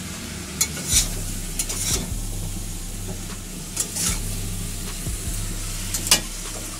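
Vegetables and prawns sizzling steadily as they fry in a metal kadai. A metal spatula stirs them, giving sharp scrapes and clinks against the pan every second or so.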